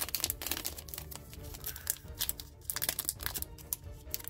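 Foil trading-card booster pack wrapper crinkling and tearing as it is opened by hand, in clusters of short crackles.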